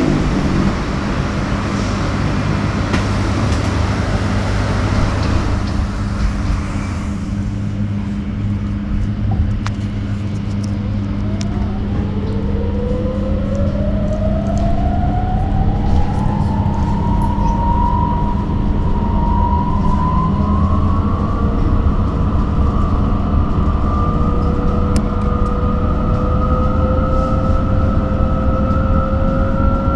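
Electric bus traction motor whine rising in pitch as the bus pulls away and accelerates, starting about 11 seconds in and levelling off into a steady high whine, over the bus's constant low interior hum.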